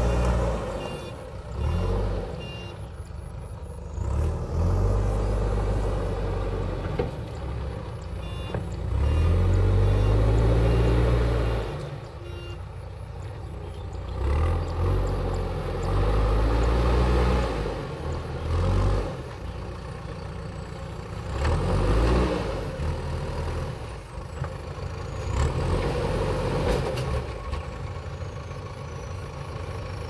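JCB 3DX backhoe loader's diesel engine running and revving up under load in repeated surges of a few seconds as the front loader bucket pushes and levels soil. Short beeps sound near the start and again about nine seconds in.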